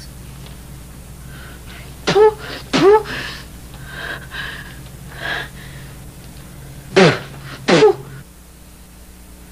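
A person makes short wordless vocal sounds, each falling in pitch. They come in two pairs: two close together about two seconds in, and two more about seven seconds in.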